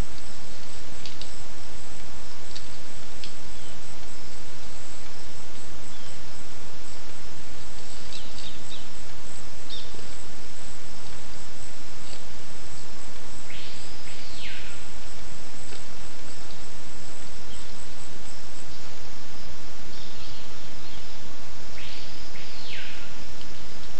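Loud steady hiss from a trail camera's microphone, with forest birds calling faintly through it: a few short chirps, and twice a longer call, about a second long, that rises and then falls in pitch.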